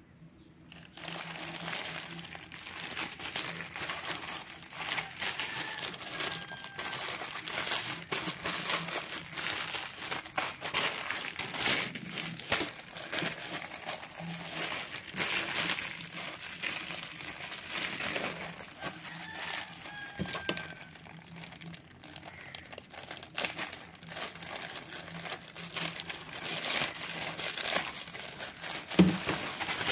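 Plastic courier mailer bag crinkling and crackling as hands work it and tear it open, with a sharp crack near the end.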